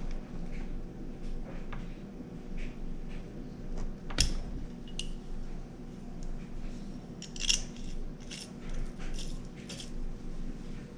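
Hand tools and small metal engine parts of a Kawasaki KX65 being handled, clinking and tapping irregularly during teardown, with a sharper metal knock about four seconds in and a run of clinks past the middle.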